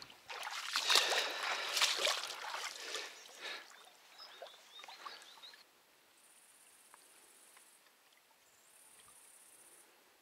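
Shallow water splashing and sloshing at a muddy bank as a fishing line and rig are worked by hand, for about the first four seconds. Then it is near quiet, with two faint high-pitched trills a couple of seconds apart.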